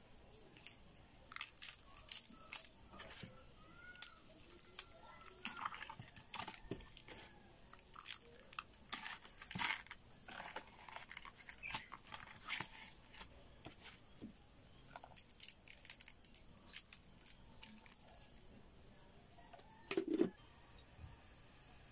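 Coarse salt being rubbed by hand onto raw, scaled tilapia pieces in a basin: irregular gritty crunching and scraping of salt grains against wet fish skin. A single louder knock comes near the end.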